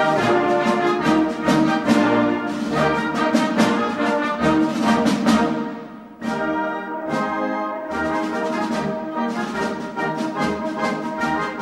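Background music: a brass march with drums beating steadily, easing off briefly about six seconds in and then resuming.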